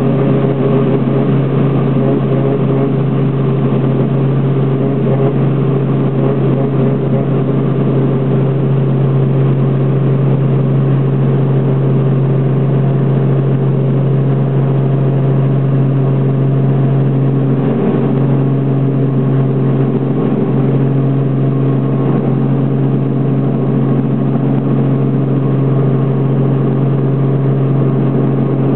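Helicopter engine and rotor running steadily, heard from inside the cabin during a low approach to land: a loud, unchanging drone with a strong deep hum and a stack of steady tones above it.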